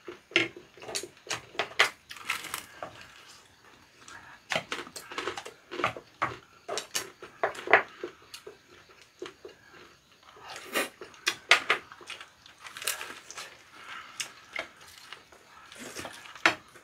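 Close-up eating sounds: crunchy biting and chewing of batter-fried food such as a large fried seaweed roll, with irregular crackles, and chopsticks and a spoon clinking against ceramic bowls.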